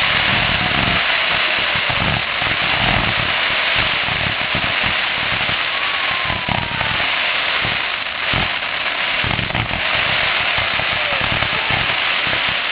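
Consumer fireworks firing continuously: dense crackling with many irregular low booms, and a faint whistle about halfway through.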